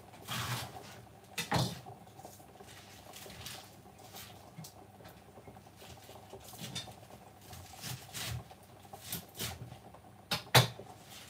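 Irregular light knocks and rustling of fresh spinach leaves being handled and cut with a knife on a wooden chopping board, with one sharper knock near the end.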